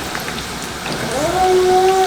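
Food frying in a pan, a steady sizzle that sounds like light rain. About a second in, a high held tone rises, holds steady and then falls away.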